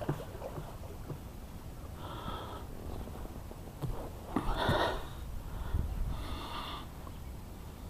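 A person's breathing close to the microphone: three short noisy breaths or sniffs, about two seconds in, in the middle and near the end.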